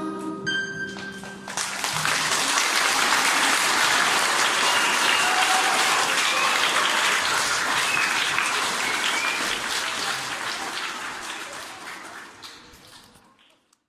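Audience applauding loudly in a hall, starting just as the last sung choir note dies away, then fading out over the last few seconds.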